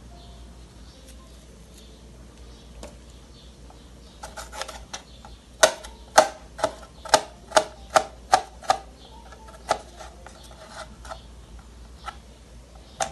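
Kitchen knife slicing red bell pepper on a plastic cutting board. After a few quiet seconds come some light taps, then a run of sharp knocks of the blade on the board, two to three a second, and two more spaced-out knocks near the end.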